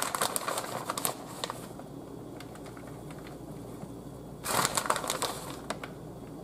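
Plastic bag of shredded mozzarella crinkling as it is shaken and handled, in two bursts of rustling: one at the start lasting about a second and a half, another about four and a half seconds in.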